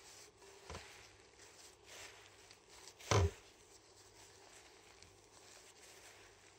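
Gloved hands kneading minced beef with breadcrumbs and flour in a glass bowl: faint rustling of the plastic gloves and squishing of the meat. There is a light knock about a second in and a louder dull thump about three seconds in.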